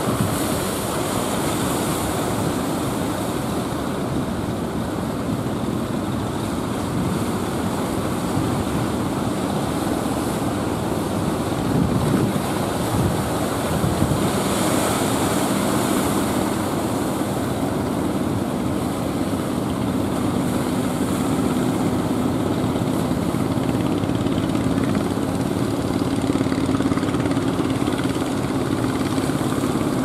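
Surf breaking and wind on the microphone, with the steady drone of a motorised outrigger fishing boat's engine that grows plainer about two-thirds of the way through.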